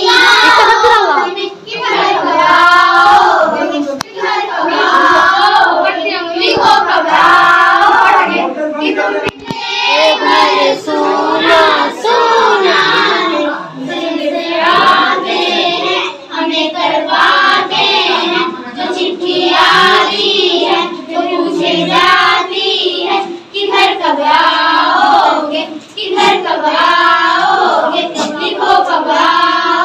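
A young girl singing into a handheld microphone, a continuous sung melody with short breaks between phrases. A few sharp clicks are scattered through it.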